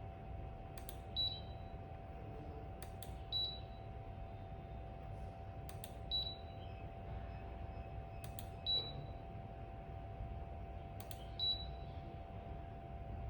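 A sharp click followed by a short high beep, five times at intervals of about two and a half seconds, over a faint steady hum. The smart ultrasonic diffuser beeps as it takes each colour change sent from the phone app.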